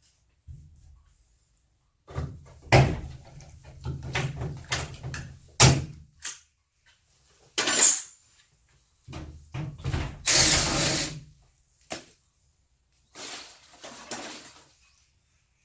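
Cordless drill running in several short bursts into a steel-faced sandwich panel, mixed with knocks and clatter of tools being handled; the longest, loudest burst is a hissing whine just under two seconds long, about two-thirds of the way through.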